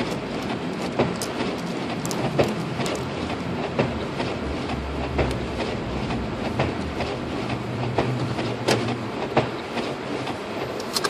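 Heater and defroster blower of a 2006 Lexus IS250 running on full, a steady rush of air inside the car's cabin, with scattered sharp clicks at irregular intervals.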